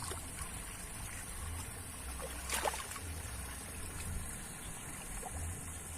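Muddy water sloshing and trickling, with one brief sharp splash or knock about two and a half seconds in.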